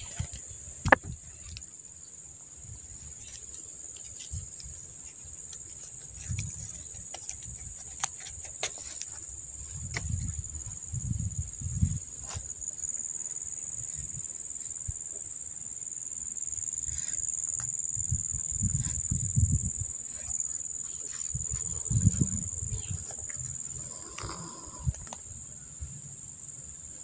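A steady, high-pitched chorus of insects calling from the waterside vegetation. A few low rumbles and scattered clicks are heard over it, the sharpest click about a second in.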